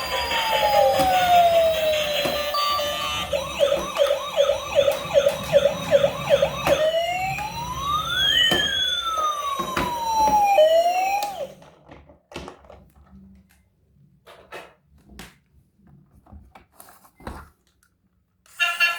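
Electronic police siren: a slow wail, then a fast yelp of quick repeated rising sweeps, then a slow wail again before it cuts off. After that, only scattered faint clicks and knocks.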